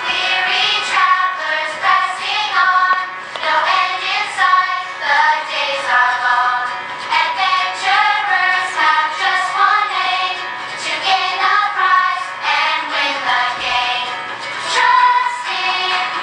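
Recorded song from a children's musical: a choir of children's voices singing a melody over backing music.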